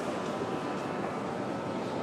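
Tashkent Metro train running: a steady rumbling hiss with a few faint steady whining tones over it.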